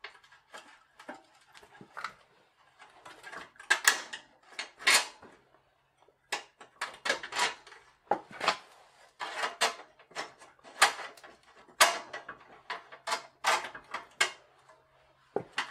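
Irregular metal clicks and knocks of a bicycle rear wheel's axle and coaster brake hub being fitted by hand into the frame's rear dropouts.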